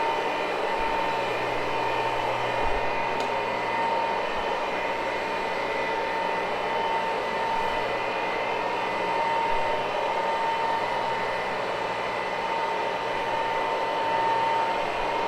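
Rotary carpet-cleaning machine running steadily, with a constant motor whine over an even drone.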